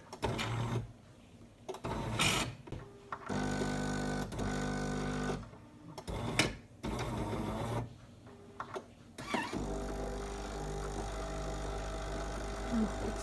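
Jura Impressa J85 bean-to-cup coffee machine's pump buzzing in several bursts, then steadily for the last few seconds, with clicks between: the automatic rinse of the coffee spout and milk system at switch-off.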